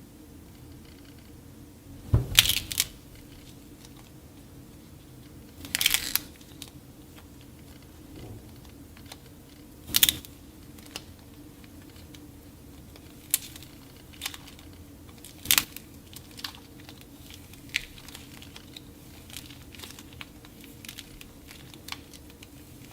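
Dried clay being cracked and crumbled by hand: a series of sharp crunches with smaller crackles between them. The loudest crunches come about 2, 6, 10 and 15 seconds in.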